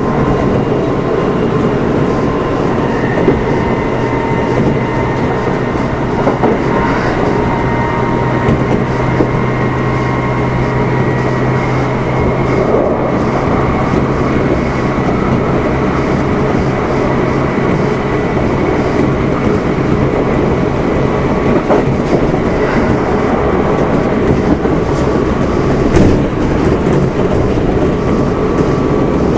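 Running sound heard inside a Kintetsu 1259 series electric motor car: wheel-on-rail rumble with a steady electric motor whine and occasional clicks from rail joints, at a fairly constant speed.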